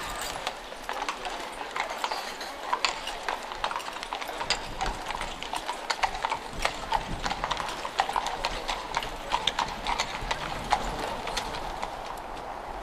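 Carriage horses' hooves clip-clopping on cobblestones: an uneven run of sharp hoof strikes, several a second, with a low street murmur beneath.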